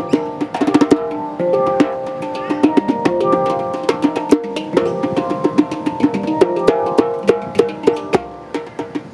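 A handpan (hang) and a djembe played together by hand: ringing, sustained steel notes from the handpan over a busy pattern of sharp djembe strikes.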